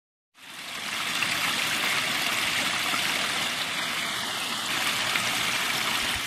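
Running water of a stream, a steady rush that fades in just after the start and fades out at the end.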